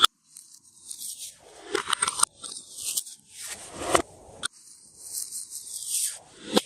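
Glossy slime being worked by hand, sticky crackles and squishes in irregular bursts, the loudest about four seconds in.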